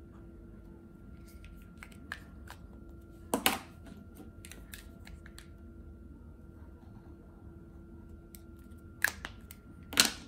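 Plastic caps of Posca paint markers clicking as a marker is uncapped and later recapped: one sharp double click about a third of the way in and two more near the end, with light ticks of markers being handled between.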